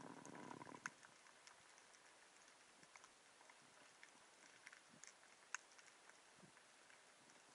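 Near-silent underwater ambience: a faint hiss sprinkled with sharp clicks and crackles, with a short rustle in the first second and a louder tick or two.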